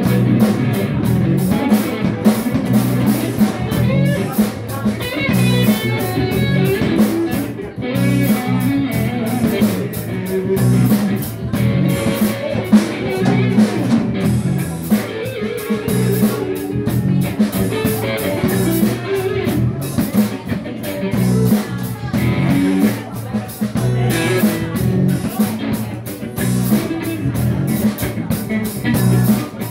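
Live band playing a blues-rock song in a living room: strummed acoustic guitar, electric guitar, electric bass and a drum kit keeping a steady beat.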